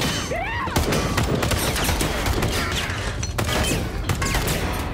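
Heavy gunfire: many shots in rapid succession with no let-up, and bullets striking and sparking off the metal body of an overturned military vehicle.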